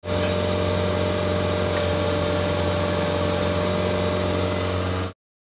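Horizontal directional drill rig's diesel engine and hydraulics running steadily, heard at the operator's console as a steady hum with a few even tones. It cuts off suddenly about five seconds in.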